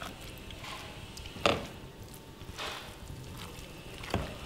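Hands scooping wet, chili-seasoned kimchi out of a ceramic bowl and pressing it into a plastic tub: soft squelching handling, with a sharp tap about a second and a half in and another near the end.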